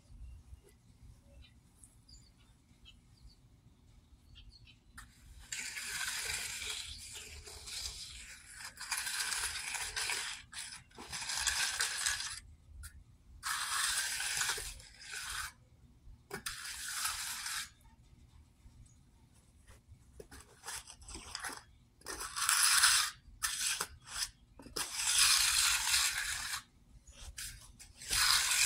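Steel hand trowel scraping over freshly poured wet concrete in repeated strokes, each one to two seconds long. The strokes begin about five seconds in, after a quiet start.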